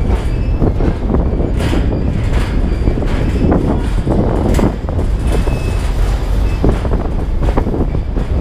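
Passenger train cars running along the track, heard close up from outside a car: a steady low rumble of wheels on rail with irregular knocks and clanks throughout.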